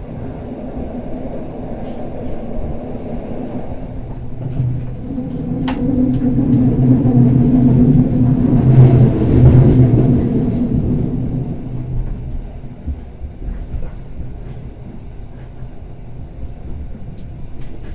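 Bernina Express train running on the rails, a low rumble that swells to its loudest about nine seconds in and then fades back, with a sharp click about six seconds in.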